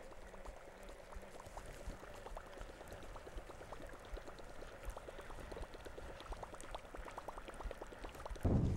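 Choppy lake water splashing and gurgling, with many small irregular ticks, as a topwater waker bait is worked across the waves. Near the end a sudden loud low rumble starts.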